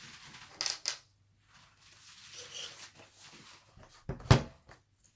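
Handling noises from a laptop being taken apart with a screwdriver: two sharp clicks, a stretch of soft scraping and rubbing, then one solid knock about four seconds in.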